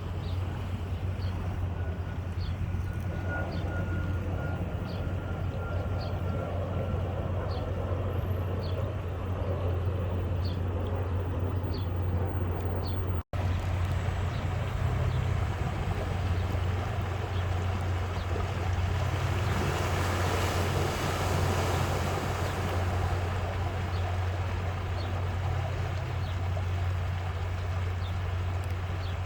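Vehicle driving on a wet road, heard from inside: a steady low hum under road and tyre hiss, with faint regular ticks about once a second. The hiss swells for a few seconds around twenty seconds in.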